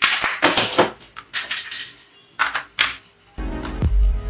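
Plastic toy guns clicking and clattering as a toy rifle is handled and set down among them, a dense run of clicks at first and then a few single knocks. Near the end a low rumble comes in for about a second.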